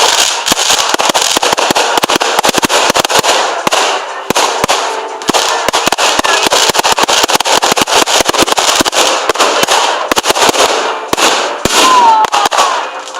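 Fireworks display going off in a dense, continuous barrage of crackling and bangs, many reports every second without a break.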